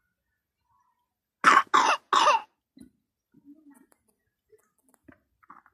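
Three coughs in quick succession about a second and a half in, from a person sick with a cold and cough.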